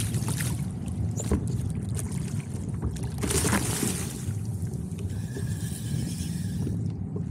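Wind buffeting the microphone over choppy bay water lapping at a kayak hull, with splashing beside the kayak as a sheepshead is handled at the surface; the splashes come at the start and again about three seconds in. A steady high whir sounds for a couple of seconds near the end.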